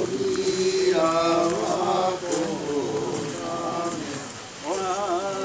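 Male voices chanting a Japanese nenbutsu-odori song, a Buddhist chant sung in long, drawn-out notes that slide slowly in pitch, with a fresh phrase starting about a second in and another near the end.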